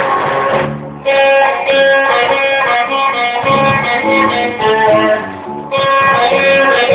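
A band playing guitar music, the strings plucked and strummed in a melodic line. The playing thins out briefly about a second in and again a little before the end.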